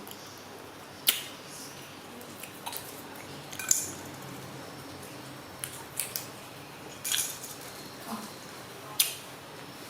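Small plastic packaging and toy pieces handled by hand during a surprise-egg unboxing: a handful of sharp clicks and brief crinkles, about five in all, spread through the stretch.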